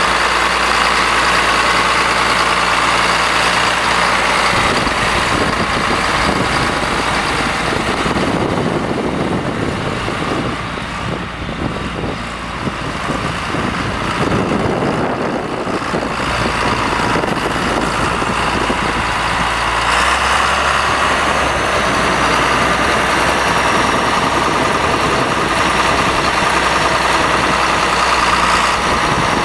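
A John Deere 4455 tractor's six-cylinder turbo diesel engine running steadily as the tractor drives, with a steady high whine over the engine note. It fades as the tractor moves off across the lot about halfway through and grows louder again as it comes back near the end.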